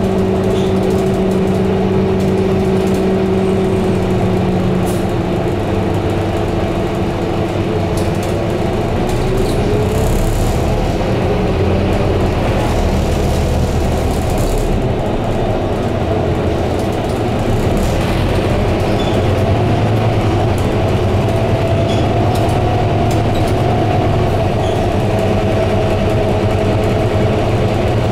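Scania K230UB bus's five-cylinder diesel engine and drivetrain running under way, heard from inside the bus. It makes a steady low drone, with whining tones that slide up in pitch about ten seconds in and again near eighteen seconds as the bus gathers speed.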